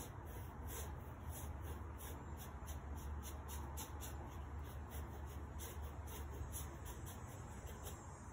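Paintbrush scrubbing paint onto a board in quick repeated strokes, a soft scratch with each stroke, about two or three a second, over a steady low hum.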